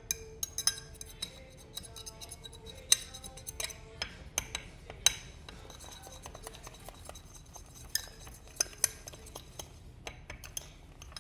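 A utensil stirring in a bowl, clinking against its side in irregular sharp strikes with a brief ringing after the louder ones.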